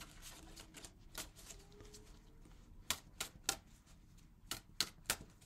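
Tarot cards being shuffled by hand: sharp, irregular card snaps, in two quick runs of three, about three seconds in and again near the end.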